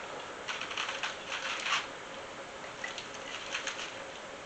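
Knife and fork scraping and clicking on a plate during a meal, in two clusters about a second long, with a brief clink near the middle.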